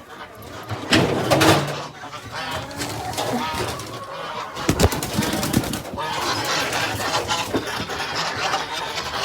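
Poultry clucking and calling, with a quick cluster of knocks about five seconds in.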